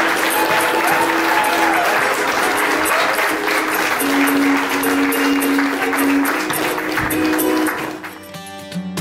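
Audience applauding over background music with long held notes. About eight seconds in the applause drops away and plucked guitar music carries on.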